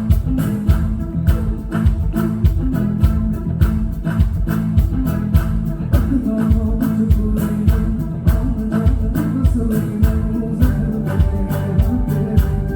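Live band playing loud through a PA system: a steady drum beat with bass and guitar, and a voice singing.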